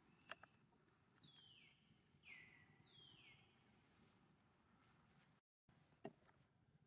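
Faint, short high-pitched animal calls, three in a row, each falling in pitch, with a couple of sharp clicks.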